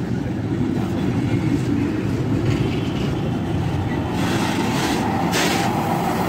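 Train running past on the rails, a loud steady rumble of wheels on track, with a brief brighter hiss about five seconds in.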